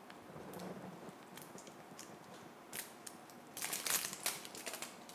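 Small sharp clicks and crinkling as the sealed plastic cap of a small nutmeg jar is worked open by hand, with a quick run of clicks nearer the end.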